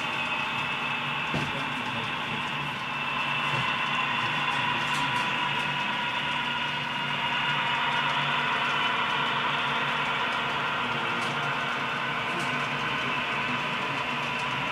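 HO-scale Proto 2000 CB&Q F7 locomotives' sound decoder playing a steady EMD diesel engine sound through the model's small speaker, mixed with the model freight cars rolling on the track. It gets slightly louder a few seconds in.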